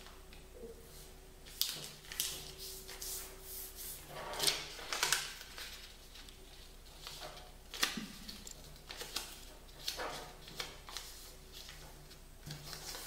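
A sheet of origami paper being folded and creased by hand: irregular rustles, crinkles and sliding swishes of paper, busiest around the middle, over a faint steady hum.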